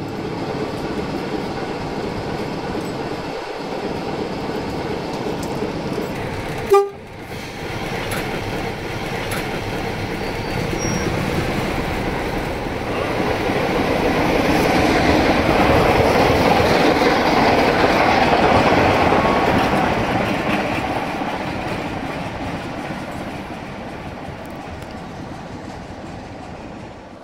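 A train on the move, its rail noise building to a peak about halfway through and fading away toward the end. A brief, sharp, loud crack about seven seconds in.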